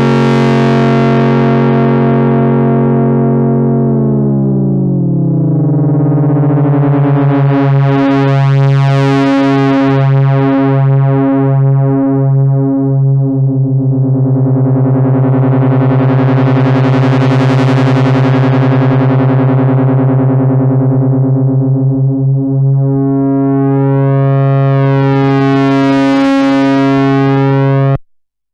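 Moog Rogue two-oscillator analogue monosynth holding a steady low drone, with its two oscillators detuned against each other. One tone slides down a few seconds in and then beats against the other in a pulsing wobble, while the filter cutoff sweeps slowly open and closed about every eight seconds. The drone cuts off suddenly near the end.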